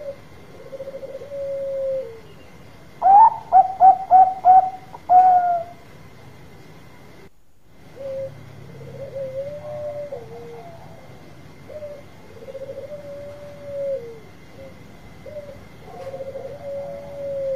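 Zebra dove of the Thai 'Bangkok' perkutut type cooing. Soft coos give way about three seconds in to a loud run of five short quick notes ending in a longer one, followed by further softer, wavering coos.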